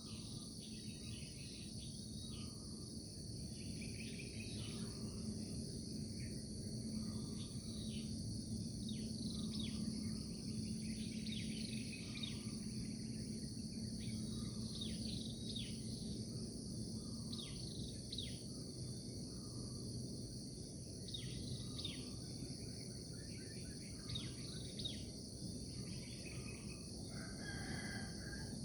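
Steady high-pitched chorus of insects, with many short, falling bird chirps scattered throughout, over a low steady rumble of background noise.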